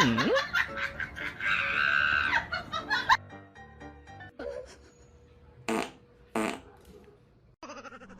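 Comedy sound effects laid over background music: a quick falling pitch glide at the start, a fart-like noise and laughter, then two short sharp sounds about six seconds in.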